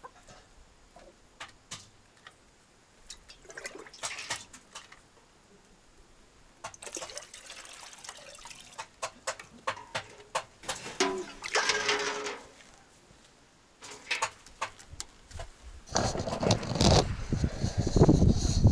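Water gurgling and trickling out of a vacuum chicken drinker once its valve nipples are pressed to let air in, with small clicks and knocks as it is handled. A louder rushing of water starts about three-quarters of the way through.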